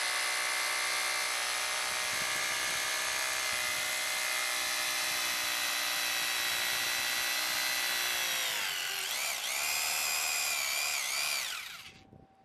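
Teeno SDS Plus rotary hammer drill boring a 6 mm hole into concrete in hammer-drill mode: a steady motor whine whose pitch sags about two-thirds of the way through and then wavers as the bit takes the load. The motor stops about a second before the end.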